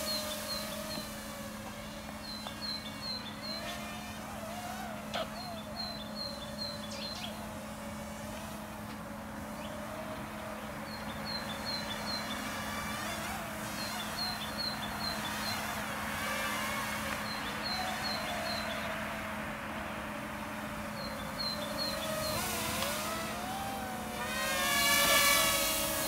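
Parrot Rolling Spider minidrone's four small electric propellers whining in flight, the pitch bending up and down as it manoeuvres and getting loudest near the end as it passes close overhead. Short high chirps in runs of three or four recur every couple of seconds.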